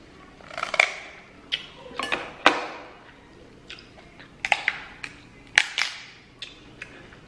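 Seafood shells, king crab legs, cracking and snapping as they are broken open by hand: a string of sharp, irregular cracks and crackles, the loudest about a second in, at two and a half seconds and again near six seconds.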